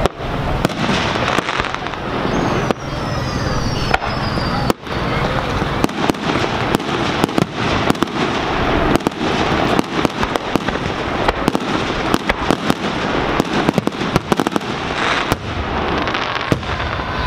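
Fireworks display: aerial shells launching and bursting in quick succession, a continuous run of sharp bangs close together.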